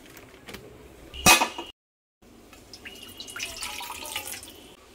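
A sharp knock about a second in, then water poured in a steady stream into a frying pan, splashing in the pan.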